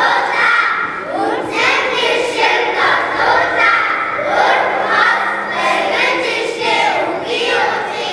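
Chorus of young children calling out the Mongolian vowels in unison, one drawn-out vowel after another about once a second.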